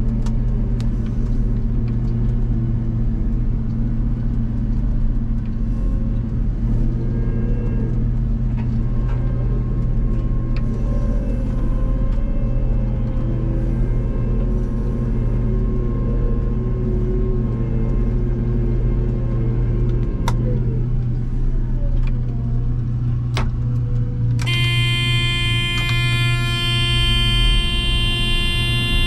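Harvest machinery's diesel engine running steadily with a low drone. About 24 seconds in, a sustained horn- or alarm-like tone starts suddenly and keeps sounding over it.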